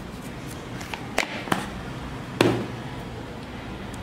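Kitchen things being handled on a wooden board: three sharp knocks, the last and loudest a dull thud about two and a half seconds in.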